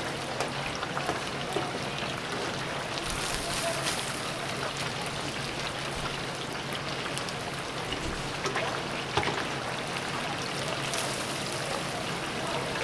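Chicken deep-frying in hot oil, sizzling steadily, with a steady low hum and scattered small clicks.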